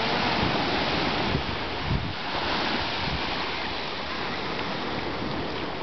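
Ocean surf washing steadily onto the shore, with wind buffeting the microphone in a few low thumps.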